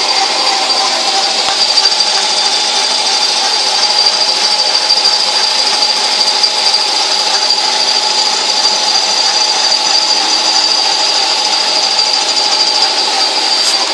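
Metal lathe running steadily while turning 1 1/4-inch black steel pipe, a constant machine noise with a steady mid tone and a high ringing tone.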